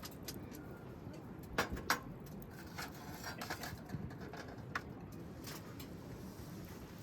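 A dove cooing, with a few sharp crackles or clicks scattered through, the loudest two close together about a second and a half in.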